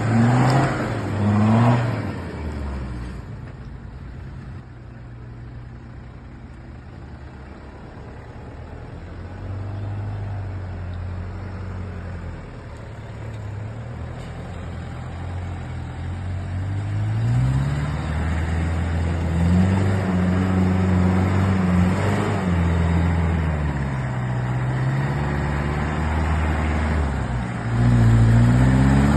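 An off-road 4x4's engine revving, its pitch rising and falling again and again. Loud near the start, it drops away for several seconds, then builds again with repeated revs over the last part.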